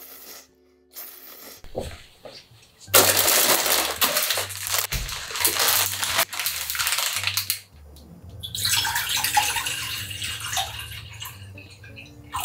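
A plastic instant-ramen packet crinkling as it is handled, then water pouring from a measuring jug into a stainless-steel saucepan. Soft background music plays underneath.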